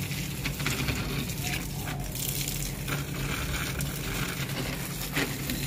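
Water from a garden hose spraying onto potted plants and the soil in their polybags: a steady splashing hiss with a few sharper splats, over a steady low hum.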